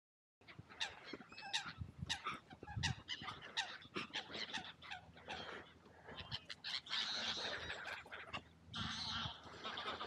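A flock of waterbirds calling, with Canada geese honking among other bird calls: many short calls, overlapping, that start about half a second in.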